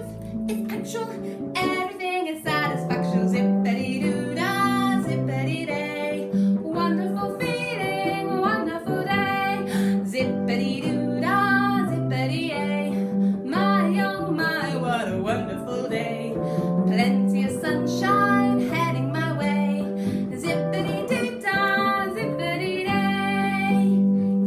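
Music: a woman singing a song with instrumental accompaniment.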